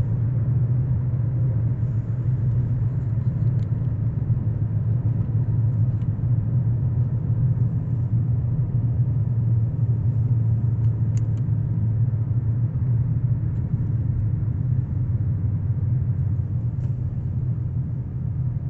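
Steady low rumble of a car driving along a road, engine and tyre noise heard from inside the cabin, with a few faint light ticks.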